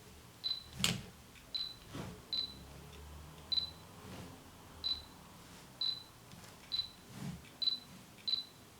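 Fujifilm X-T2 mirrorless camera giving short high focus-confirmation beeps about once a second as it autofocuses, with a few sharp clicks in between.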